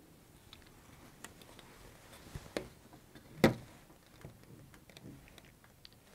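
Scattered light knocks and clicks of a plastic ruler being handled and set against a whiteboard, the loudest about three and a half seconds in.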